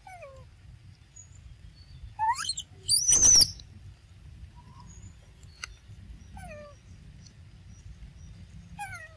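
Animal calls: short falling calls that repeat every few seconds, and one loud, shrill squeal about three seconds in.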